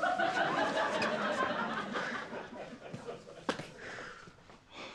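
Studio audience laughing, loudest at first and fading over a few seconds. A single sharp knock comes about three and a half seconds in.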